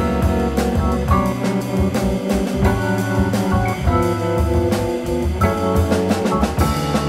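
Jazz group playing: a drum kit's cymbals and drums keep a steady beat under a low bass line and sustained notes from other instruments.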